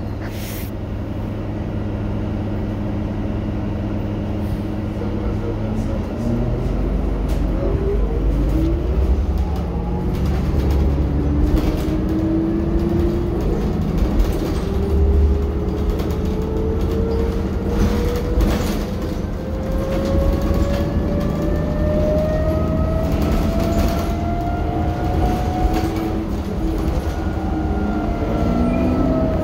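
New Flyer DE60LF diesel-electric hybrid articulated bus, heard from inside the cabin, pulling away: about six seconds in its low rumble grows heavier and a drive whine rises slowly in pitch as the bus gathers speed, falling again near the end. Scattered rattles and knocks from the bus body.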